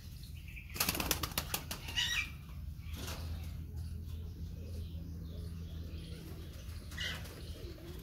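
Pigeon wings flapping: a quick run of wing claps about a second in, lasting under a second, with another short flap about two seconds in.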